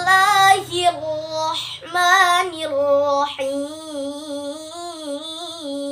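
A 12-year-old girl's solo voice chanting Quran recitation in melodic murottal style. Her short phrases bend and waver, then settle into one long held note from about halfway through.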